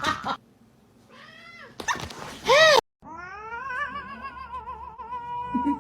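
Domestic cat meowing: two short meows, then, after a cut about three seconds in, a long wavering yowl held for about two and a half seconds.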